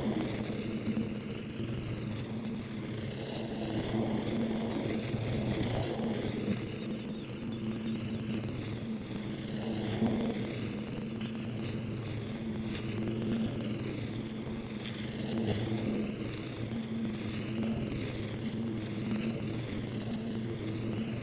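Engine of a DR Scout walk-behind brush mower, running steadily under load as it mows tall overgrown grass.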